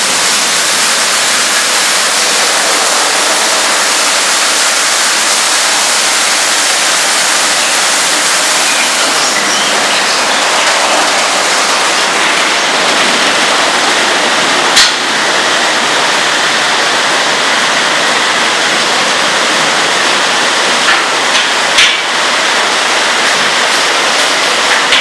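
Ceccato tunnel car wash spraying water over a car: a loud, steady hiss of the spray jets. A sharp knock about halfway through and a few smaller knocks near the end.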